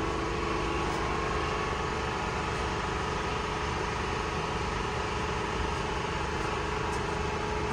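Steady hum of running machinery: an even rushing noise with a few steady tones in it.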